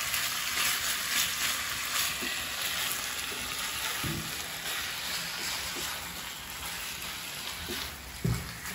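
Minced chicken sizzling in a nonstick frying pan as it is stirred with a silicone spatula: a steady frying hiss with short scraping strokes, thinning somewhat after about six seconds. The meat is still raw and is being stirred until it turns white.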